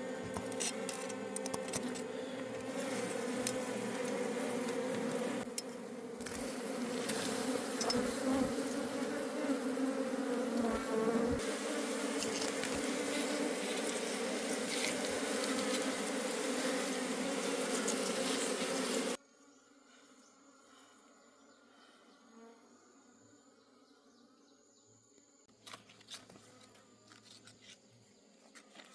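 A mass of honey bees buzzing loudly as a dense, steady hum. About two-thirds of the way through the hum cuts off abruptly, leaving a faint quiet background with a few light clicks.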